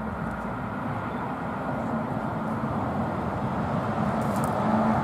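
Diesel locomotive engine running as the locomotive rolls slowly closer, a steady drone that grows louder throughout.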